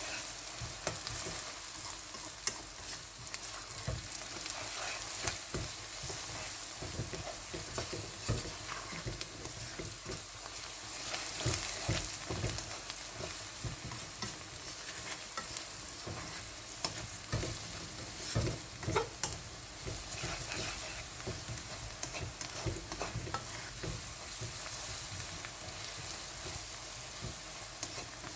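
Sliced onions and whole spices sizzling in hot oil in a karahi while being stirred with a slotted spatula, with frequent scrapes and light knocks of the spatula against the pan over a steady frying hiss.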